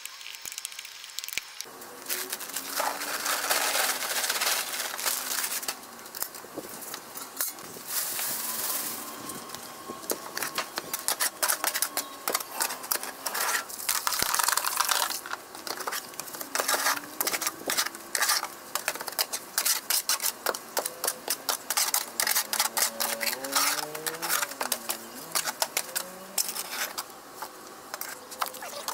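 A shovel scraping and crunching in dry sandy soil and in a wet sand-and-cement mix in a plastic tub: a long run of irregular scrapes and gritty knocks, with water poured into the mix about midway.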